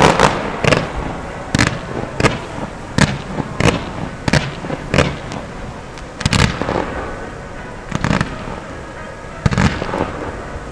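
Fireworks display: aerial shells bursting in a quick, irregular run of sharp bangs, with a brief lull a little past the middle before the bangs resume.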